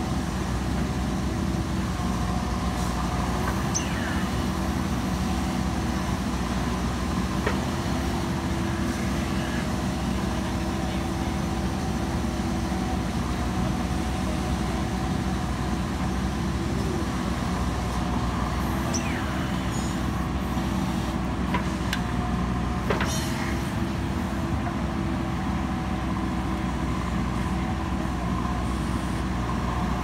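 JCB 3DX backhoe loader's diesel engine running steadily under load while the backhoe bucket digs soil, with a couple of short sharp knocks, one about seven seconds in and one a little past twenty seconds.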